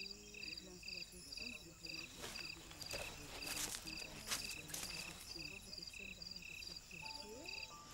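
Crickets chirping in a steady rhythm, two to three chirps a second, over faint low murmuring voices, with a few sharp clicks around the middle.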